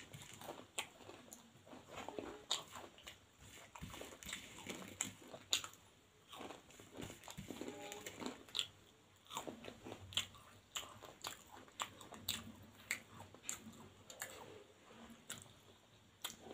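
Close-up crunchy chewing of bhujia, the crisp fried gram-flour noodle snack: a steady run of irregular crisp crunches and bites.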